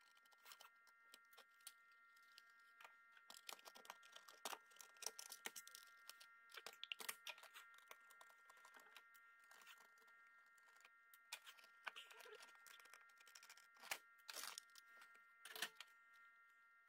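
Faint, irregular clicks and scrapes of a small precision screwdriver working screws out of a slim DVD drive's sheet-metal casing, with a few sharper clicks near the end.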